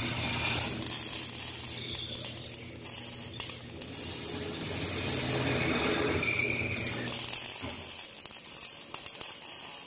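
Electric arc welding on steel square tubing: a dense, steady crackle and sputter of the arc, in two runs with a short break about six seconds in.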